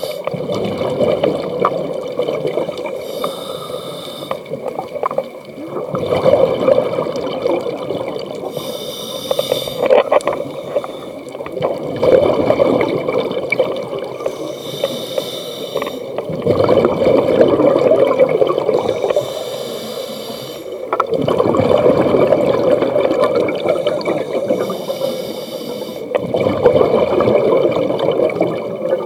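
A scuba diver breathing through a regulator underwater. Each breath starts with a short hissing inhale through the regulator, about every five to six seconds, and is followed by a longer gurgling rush of exhaled bubbles.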